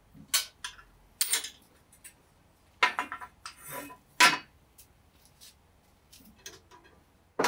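Metal clinks and clatters of a hand tool and small parts being handled and set down on a cast-iron machine table: several sharp knocks in the first four and a half seconds, then a few lighter ticks.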